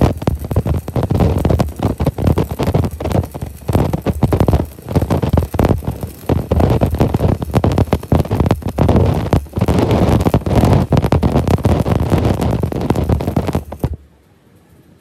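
Electric arc welding on a truck drive shaft: the arc gives a loud, dense, irregular crackle and sputter that cuts off suddenly near the end.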